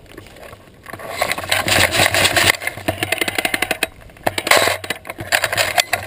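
Airsoft M249 SAW electric gun with upgraded internals firing full-auto: a rapid rattle of the gearbox cycling over the motor's whir, in several long bursts that begin about a second in, with short breaks.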